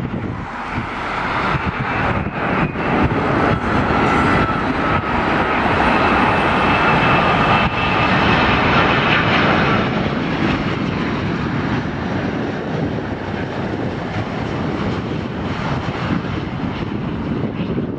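Boeing 787-9 airliner on final approach with its landing gear down, jet engines running at approach power: a steady rumble with a high whine that grows loudest about halfway through, then eases off as it passes.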